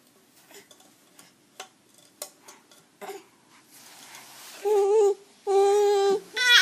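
Baby fussing: two short, steady-pitched cries about five seconds in, after a few seconds of faint clicks and taps.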